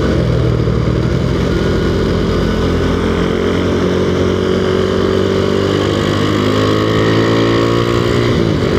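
Honda 110 cc single-cylinder four-stroke underbone motorcycle with a Tsukigi aftermarket exhaust, running under steady throttle while riding. Its note climbs slowly in pitch and dips briefly near the end.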